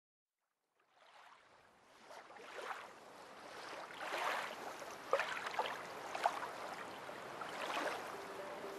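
A rushing, surf-like noise fades in after about a second of silence and surges up and down in swells every second or two, with a couple of sharp clicks around the middle. A few held musical notes begin near the end.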